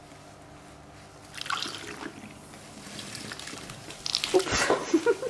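Red-dyed vinegar poured through a plastic funnel into a bottle of baking soda, splashing and trickling, then a louder spell of fizzing and splashing about four seconds in as the mixture foams up out of the bottle neck.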